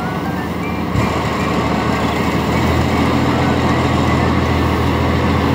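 Diesel engine of a tracked rice combine harvester running, getting louder about a second in and then holding a steady note as it puts out exhaust smoke.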